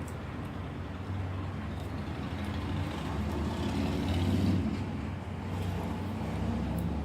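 Low, steady vehicle engine rumble that swells about four seconds in.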